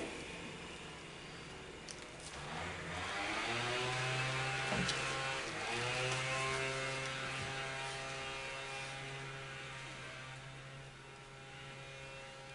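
Small petrol engine of outdoor landscaping equipment revving up twice, about two seconds in and again around six seconds in, then running at a steady pitch and slowly fading.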